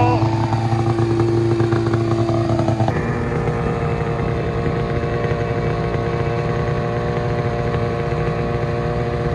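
Ski-Doo 600RS snowmobile's two-stroke engine idling steadily just after being pull-started. About three seconds in the idle note changes abruptly, then holds steady.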